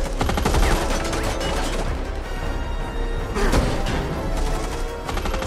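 Movie soundtrack: rapid automatic rifle fire for about the first two seconds over dramatic score music, then a crash about three and a half seconds in as the music carries on.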